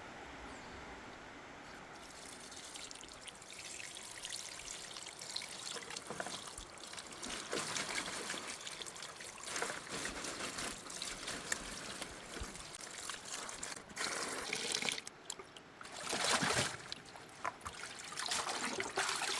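Water trickling and splashing unevenly as fresh produce is washed by hand, with small clicks and splashes throughout and a louder splash about two-thirds of the way in.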